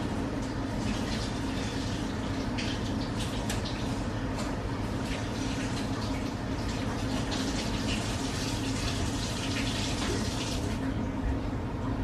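Kitchen tap running into a sink with dishes clinking, the water shutting off near the end.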